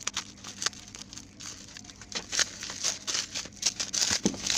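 Plastic bubble wrap crinkling and rustling in irregular crackly bursts as a box is pulled out of it, getting busier about halfway through and loudest near the end.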